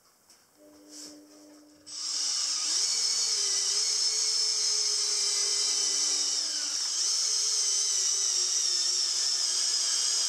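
Cordless drill-driver running with a steady high whine as it drives a screw into a solid pine panel, starting about two seconds in after a few faint clicks.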